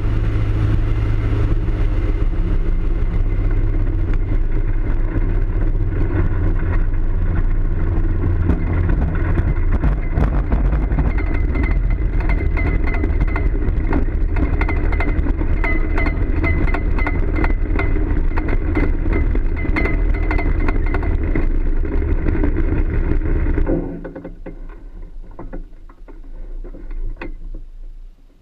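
Ultralight aircraft's engine and propeller running steadily while it rolls and taxis over grass, with frequent small knocks. About three-quarters of the way through the engine is cut and the sound drops away as the propeller spins down.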